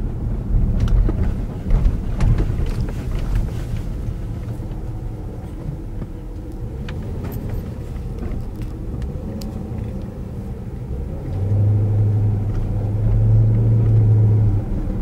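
Low engine and road rumble heard inside a moving car's cabin. About eleven seconds in, a steady low drone joins it and grows louder for a few seconds, then drops away just before the end.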